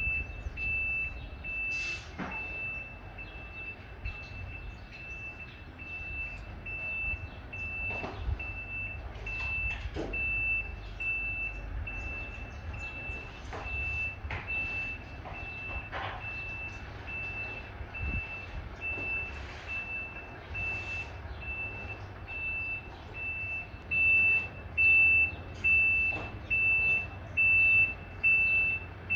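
Reversing alarm of a semi-trailer truck beeping as it backs up: a single high tone repeating a little faster than once a second, growing louder near the end, over the low rumble of the truck's engine.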